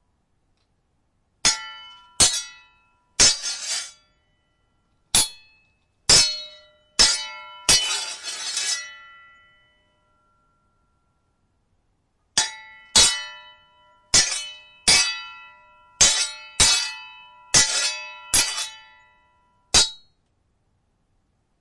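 Steel sword blades clashing: sharp metallic strikes that ring after each hit, with one longer grinding scrape of blade along blade about eight seconds in. A pause of about three seconds follows, then a quicker run of about eleven clashes.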